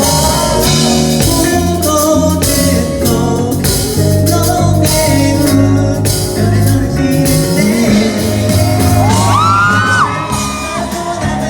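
Pop band music with drums and a held singing voice that slides up in pitch near the end, with some shouting.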